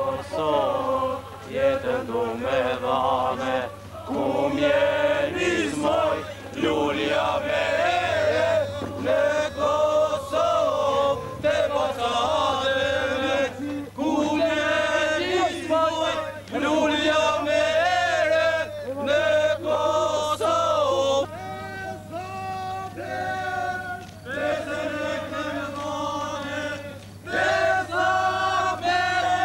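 A group of men singing a marching song together.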